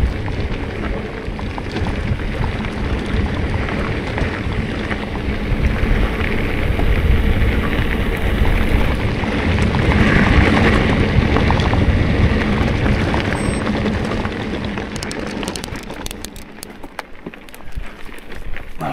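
Bike tyres rolling fast over dirt and gravel, with a steady crunching rumble and wind buffeting the handlebar-mounted microphone. It eases about three-quarters of the way through, and a quick run of sharp ticks and rattles comes through.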